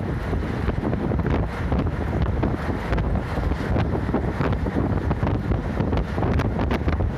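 Wind noise and road and engine rumble inside a moving route bus, with scattered light rattles that come more often toward the end.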